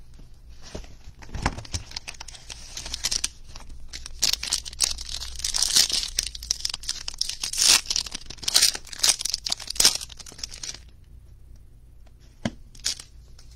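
A foil trading-card pack wrapper being torn open and crinkled by hand: a dense run of crackling that stops about eleven seconds in. Near the end come a couple of faint clicks as the cards are handled.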